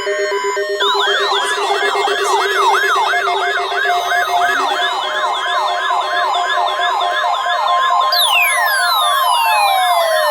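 Layered electronic alert tones from a NOAA Weather Radio / Emergency Alert System weekly test: a siren-like tone rising and falling about two and a half times a second starts about a second in, over a low pulsing tone. A steady tone near 1 kHz joins partway through, and long falling glides sweep down near the end.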